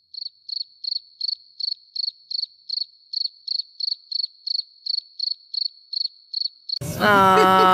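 Cricket chirping sound effect: one high, even chirp repeating about three times a second over dead silence, the comic 'crickets' gag for an awkward pause. It stops abruptly near the end.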